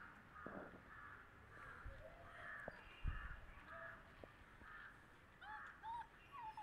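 Bird calls repeated over and over, about two a second, with a few small squeaks near the end. Faint clicks and a low thump about three seconds in come from puppies feeding at a bowl.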